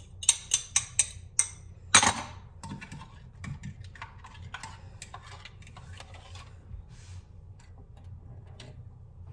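A fork and dishes clinking against a mixing bowl. There is a quick run of sharp taps in the first second and a half and one loud clink at about two seconds. Then come lighter, quicker clicks as the fork stirs egg, milk and butter into the flour for batter.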